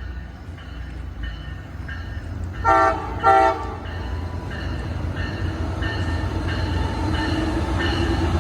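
Amtrak locomotive horn giving two short blasts close together, a friendly toot to the platform. Under it, the low rumble of the arriving train builds steadily as it draws closer.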